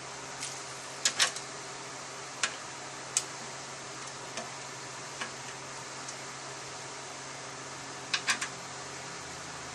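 Light metallic clicks and taps as the transmission's fluid filter and its bolts are set onto the valve body: a double click about a second in, single ticks every second or so, and a quick cluster of three near the end, over a steady low hum.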